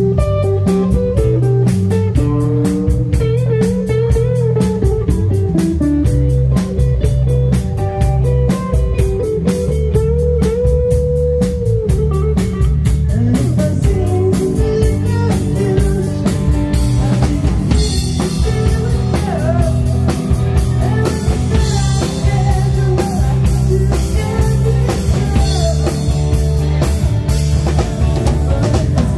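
Live rock band playing an instrumental passage: electric guitar holding long notes that bend up and down in pitch, over electric bass and a drum kit keeping a steady beat.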